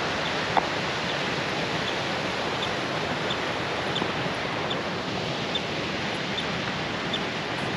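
Steady rushing of a mountain creek, with faint high chirps repeating at intervals of about two-thirds of a second.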